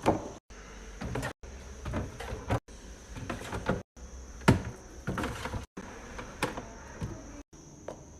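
Knocks and clatters of containers and food items being handled and set down in a refrigerator, heard in several short clips.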